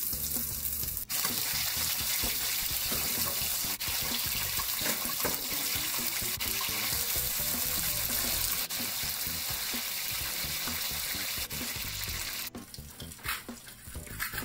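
Rice-paper-wrapped turkey sausage rolls frying in hot oil: a steady hissing sizzle. About twelve seconds in it drops to a quieter sizzle with scattered crackles and pops.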